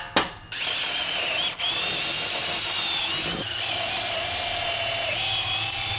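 Electric drill with a 0.340-inch bit boring into a wooden board. The cutting sound starts about half a second in, with a wavering whine, and has a brief break about a second and a half in.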